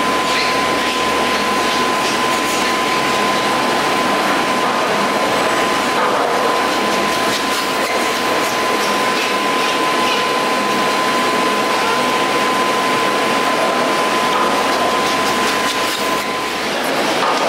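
Chairlift machinery running steadily: a loud even mechanical noise with a constant high whine that stops shortly before the end, and a few faint ticks.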